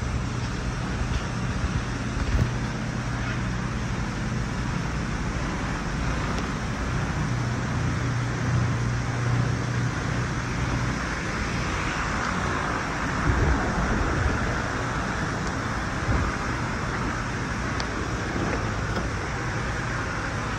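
Steady low mechanical hum under constant background noise, with a few faint bumps.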